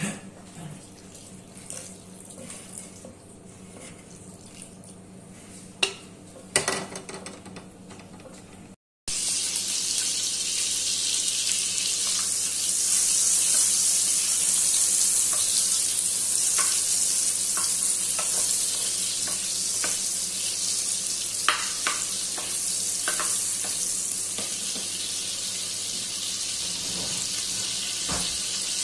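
Butter and sesame oil sizzling in a hot wok: a steady hiss that starts abruptly about nine seconds in, with a few light clicks from the wooden spatula against the pan. Before it, quiet room tone with a couple of sharp knocks.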